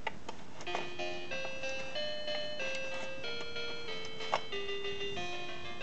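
Vtech Soft Singing Radio baby toy playing a simple electronic melody of single beeping notes, starting about a second in, with light clicking from its spinner as a finger turns it.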